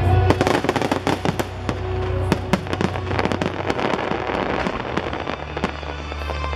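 Fireworks going off in quick succession: many sharp bangs and crackles over the show's music soundtrack.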